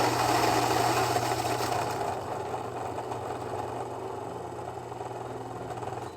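Fellow Ode Brew electric coffee grinder's motor running and grinding coffee beans through its flat burrs. The grind is pretty loud at first and gets steadily quieter as the beans run out, and the motor cuts off near the end.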